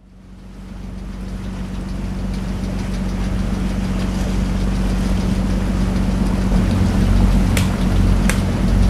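A boat's inboard engine running steadily with a low hum, fading in at the start. A few sharp clicks come near the end.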